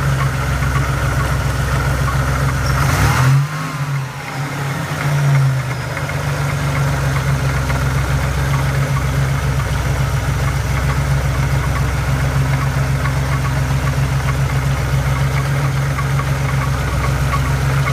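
Car engine idling steadily, with a knocking noise that the owner is asking about. About three seconds in the engine speed briefly rises and falls, then it settles back to an even idle.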